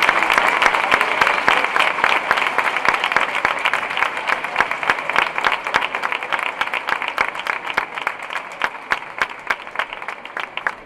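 Crowd applauding, dense at first, then thinning to scattered claps as the applause dies away.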